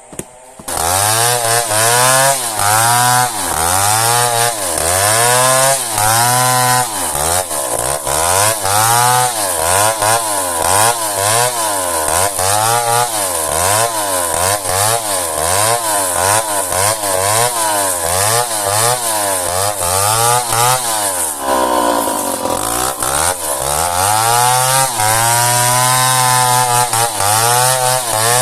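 Two-stroke chainsaw cutting into merbau hardwood, its engine speed dipping and recovering about once a second as the bar works through the dense wood. About three-quarters of the way through it revs higher briefly, then settles back into the cut.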